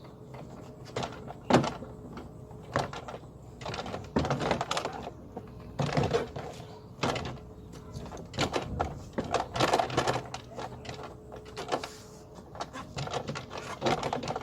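A car door's inner cover being fitted back onto the door and pressed into place: irregular knocks, clicks and rattles as it is handled.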